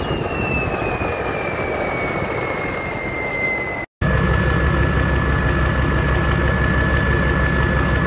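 Ford 7.3 IDI diesel with a BorgWarner S257 SX-E turbo: the turbo whistle falls steadily in pitch as it spools down. After a brief cut, the engine runs steadily with a constant turbo whistle over it.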